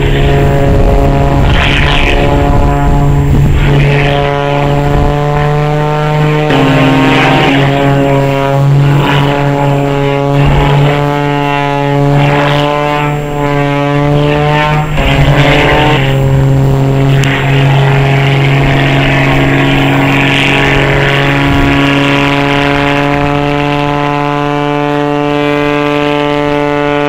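Piston engine and propeller of an aerobatic biplane flying a smoke display: a loud, steady droning note that shifts in pitch a few times.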